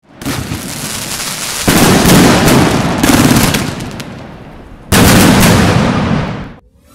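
Loud fireworks explosions: four sudden blasts, each trailing off in a long rumble, with the last one fading away shortly before the end.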